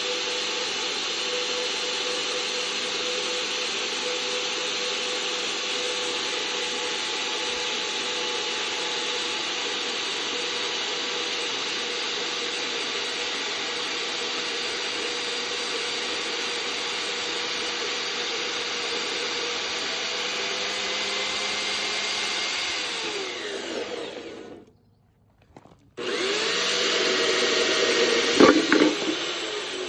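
Vevor portable 5-inch band saw cutting through 2-inch DOM steel tubing with a 1/4-inch wall: a steady motor whine and blade rasp that fades out after about twenty-three seconds. After a short gap it runs again briefly.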